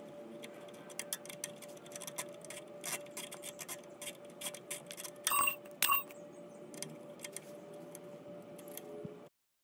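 Irregular metal clicks from a hex key turning a set screw into a chain sprocket's hub, with two louder ringing clinks of metal on metal about five and six seconds in, over a faint steady hum. The sound cuts off abruptly just before the end.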